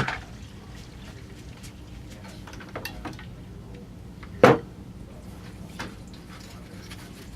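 Clicks and knocks of disassembled AK47 rifle parts being handled, with one louder knock about four and a half seconds in.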